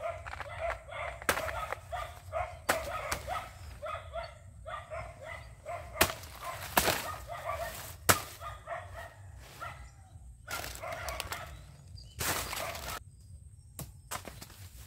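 Rustling and crackling of dry banana leaves and undergrowth as someone moves through and handles the plants, in short sharp bursts. Behind it, an animal calls in a quick series of short pitched notes, about three a second, which stop about two-thirds of the way through.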